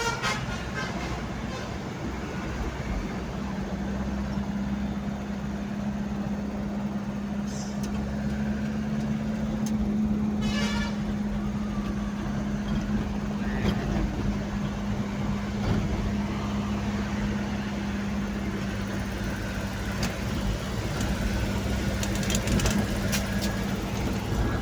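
Road traffic on a highway: a vehicle engine's steady low drone with tyre and road noise.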